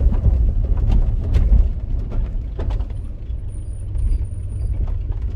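Passenger cabin of a London black taxi on the move: a steady low engine and road rumble with scattered clicks and rattles, a little louder for the first second and a half.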